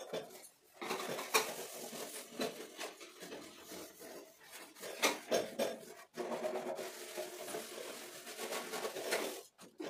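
Steel-wool scrubber rubbing over the soapy stainless-steel top of a two-burner gas stove, with irregular back-and-forth scrubbing strokes and a short break about six seconds in.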